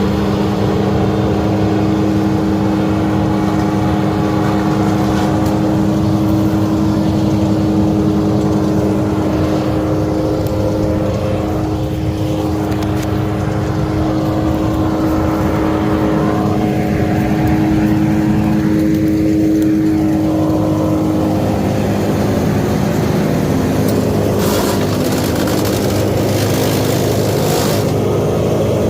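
Two-stroke chainsaw running at steady high revs while cutting into a pine trunk. Its pitch shifts about two-thirds of the way through, and a few sharp crackles come near the end.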